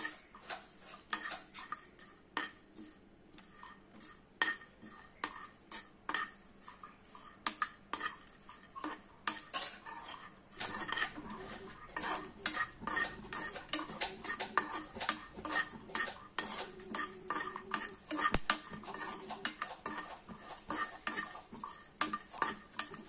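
Whole spices (cinnamon sticks, cardamom pods, cloves, fennel and cumin seeds) being dry-fried in a metal pan and stirred with a metal spoon. The spoon scrapes and clinks irregularly against the pan, and the stirring gets busier from about halfway through.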